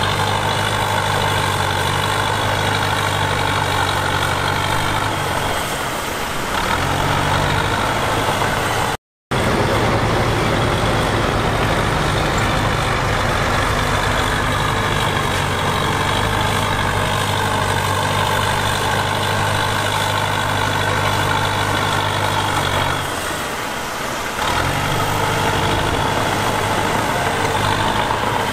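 Heavy diesel earthmoving machine running steadily under load. Its engine note sags and recovers twice, about six seconds in and again near the end. The sound cuts out completely for a moment about nine seconds in.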